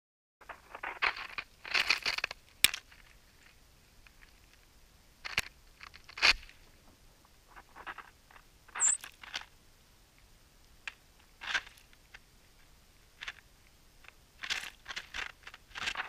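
White-throated sparrows pecking sunflower seeds out of the snow close up: irregular crunches, taps and scratches in short clusters, with one brief high note about nine seconds in.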